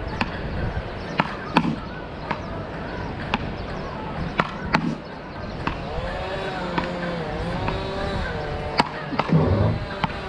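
Wooden beach paddles hitting a small rubber ball back and forth in a rally: about ten sharp knocks at irregular intervals, with a pause between about six and eight seconds in, where a wavering pitched sound is heard instead.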